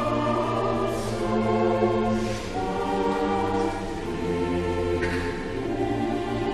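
Slow background music of sustained, choir-like chords that shift every second or two, with a few soft swells of hiss.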